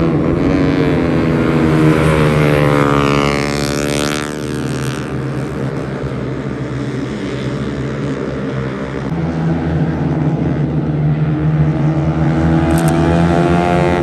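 Road-racing motorcycle engines running at high revs, with one bike passing close about three to four seconds in, its pitch rising and then falling away, over the steady drone of other bikes.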